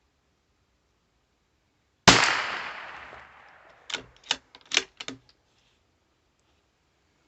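A single rifle shot with a long echoing decay, followed about two seconds later by a quick series of five or six sharp clicks and knocks.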